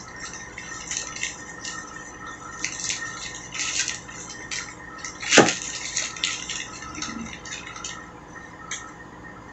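Plastic zip-lock bag and disposable plastic gloves crinkling and rustling in irregular bursts as hands handle the bag, with one sharp click about halfway through.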